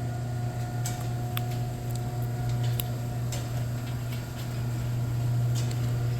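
Chamberlain garage door opener running: a steady motor hum with scattered light clicks and rattles as it drives the door.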